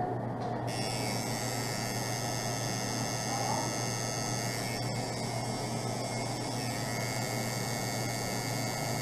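Tattoo machine buzzing steadily while its needle lines a tattoo on skin.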